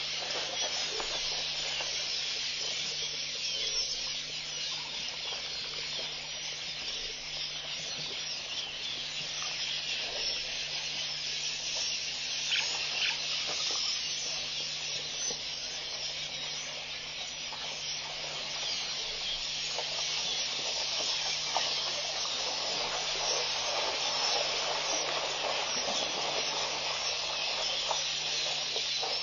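Steady high hiss with a low, even hum beneath it and no clear event standing out.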